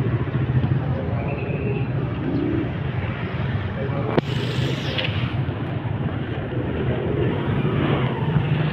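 City street ambience: a steady rumble of traffic with voices in the background. About four seconds in comes one sharp click, followed by a brief hissing rush.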